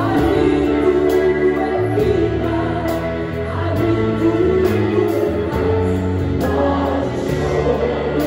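Live gospel music: a choir singing with a church band, electric guitar and bass over a steady beat.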